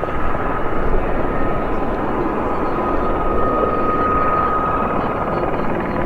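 Two Aérospatiale Gazelle helicopters in formation flight at a distance: steady rotor and turbine noise with a thin, steady high whine that swells a little about four seconds in.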